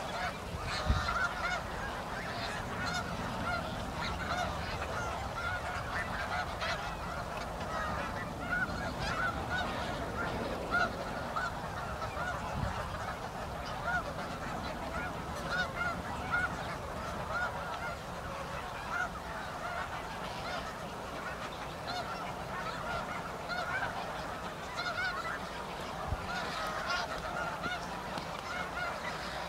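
A large flock of snow geese calling: a dense, continuous chorus of many overlapping short honks.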